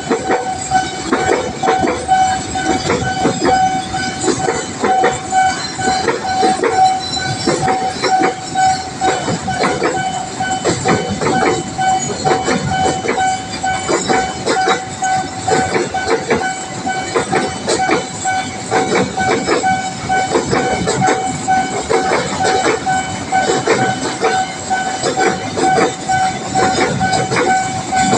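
Railway level-crossing alarm sounding one steady high tone while a train passes, its wheels clattering continuously over the rail joints.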